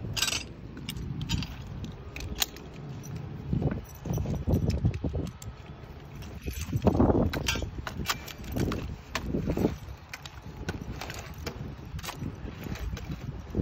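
Metal hardware of a Jelco fall-restraint belt clinking and jangling, with irregular dull knocks as pole-climbing gaffs bite into a wooden utility pole.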